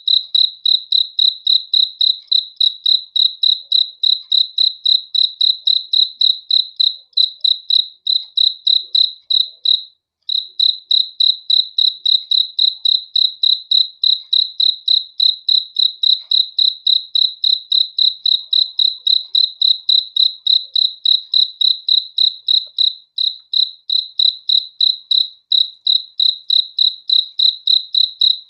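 A cricket chirping steadily, a high-pitched pulse repeated about three times a second, with a brief pause about ten seconds in.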